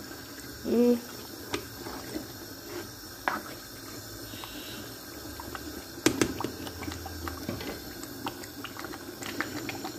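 Thick meat stew in a metal pot being stirred with a spoon: wet sloshing of the sauce with scattered clicks of the spoon against the pot. A louder knock comes about six seconds in.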